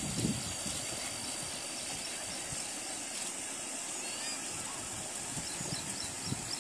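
Steady high-pitched outdoor hiss with a few faint high chirps.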